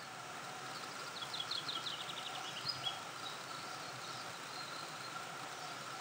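Forest ambience: a small songbird sings a quick series of about ten short high notes, then a few thinner high whistles, over a steady faint hum.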